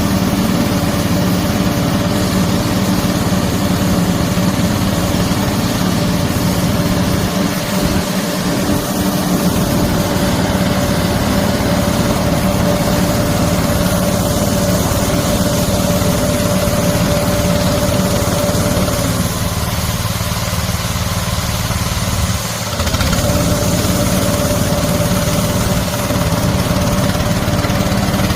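Dagam-300DE orchard sprayer's engine running steadily. A steady tone in its sound drops out for a few seconds about two-thirds of the way through, then returns.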